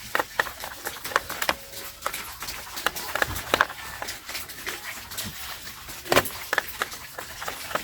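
Small screwdriver turning a screw into a plastic toy car body, a run of irregular small clicks and scrapes, with one sharper knock about six seconds in.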